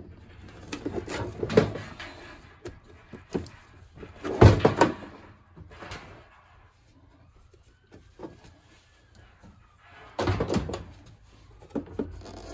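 Knocks, clatter and scraping of hands and parts being worked inside a tumble dryer's casing. The loudest knock comes about four and a half seconds in, there is a quieter spell after it, and another burst of clattering comes about ten seconds in.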